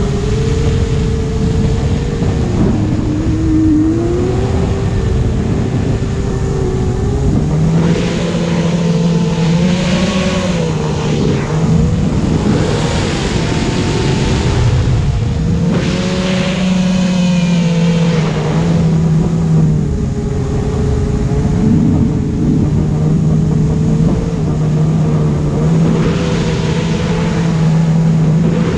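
Small electric RC aircraft in flight: brushless motor and propeller whine whose pitch steps up and down with the throttle, over rushing air noise on the onboard camera.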